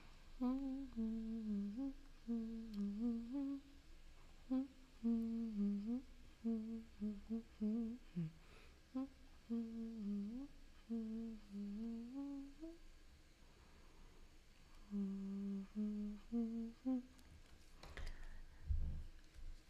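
A woman humming a tune to herself with her lips closed, in short phrases of notes with a pause partway through before a shorter phrase; a couple of low bumps near the end.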